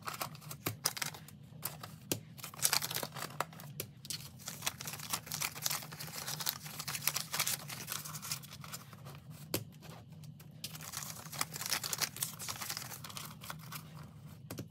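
Paper banknotes rustling and crinkling as they are pulled from cash envelopes and sorted by hand. A few sharper clicks stand out from the rustle.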